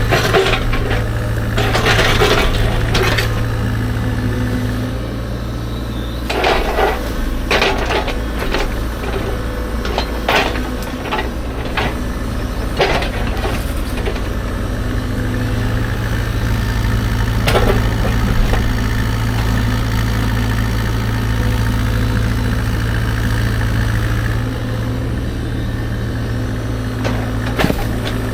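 CAT 305.5 mini excavator's diesel engine running steadily while its bucket digs into rocky ground, with irregular clanks and scrapes of steel on rock and dirt.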